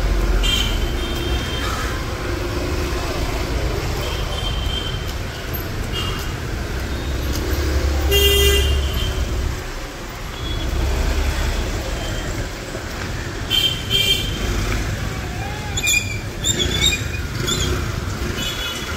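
Busy street traffic: motor scooters, motorcycles and taxis running past, with vehicle horns honking in short blasts again and again, the loudest about eight seconds in.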